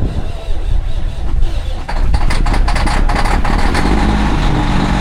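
Diesel semi-truck engine running, growing louder about two seconds in with a clatter, then settling into a steady idle.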